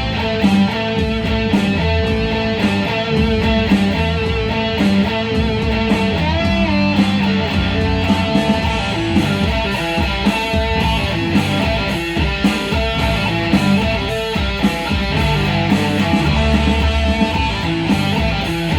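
Guitar-led music playing steadily, with a regular beat.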